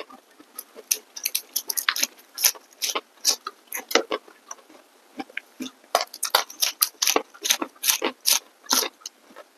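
Close-miked eating sounds: a quick, irregular run of crisp crunches and wet mouth clicks from chewing raw vegetables such as cucumber.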